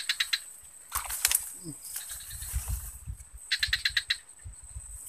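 A rapid chattering animal call, a short burst of quick pulses, heard twice, over a steady high-pitched whine; a few sharp clicks about a second in.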